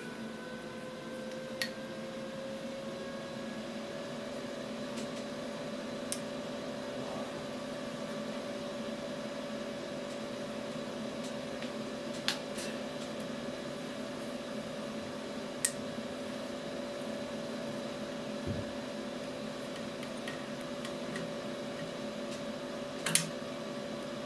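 Steady machine hum with a tone that rises slightly over the first few seconds and then holds, under a few sharp clicks as plastic pneumatic tubing is handled and pushed into push-in air fittings; the loudest click comes near the end.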